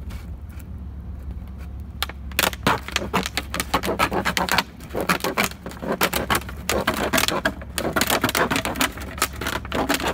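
Scissors cutting through a large thin-walled plastic water jug: rapid crackling and crinkling of the plastic with each snip, starting about two seconds in, with a short pause near the middle.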